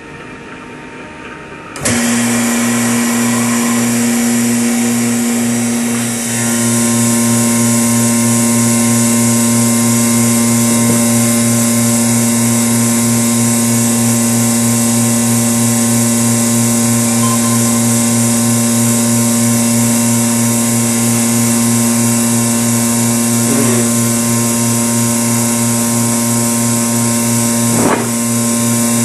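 Vacuum motor of a vacuum-forming machine running steadily, drawing the heated plastic sheet down over the mold. It is a loud, even hum with a pulsing low drone and a hiss, and its note shifts slightly about six seconds in.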